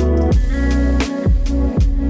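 Background music with a steady beat: deep bass notes and drum hits.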